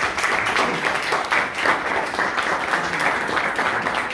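A roomful of students applauding, many hands clapping at once.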